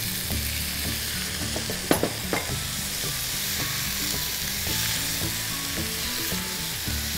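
Vegetables sizzling steadily in oil and ghee in a non-stick frying pan as cauliflower florets go in, then stirred and turned with a wooden spatula. A couple of short knocks come about two seconds in.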